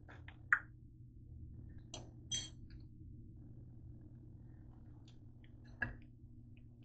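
A metal fork clinking and tapping against the griddle and a plate as grilled bread slices are lifted off: a few light clinks, the sharpest about half a second in, more around two seconds and near six seconds.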